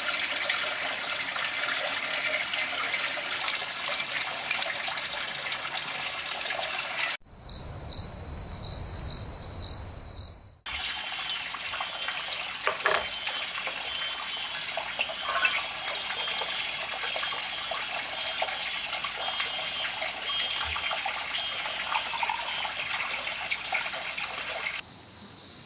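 Steady, dense outdoor hiss. About seven seconds in, a quieter stretch of about three seconds carries a cricket's chirp, a quick series of short high pulses.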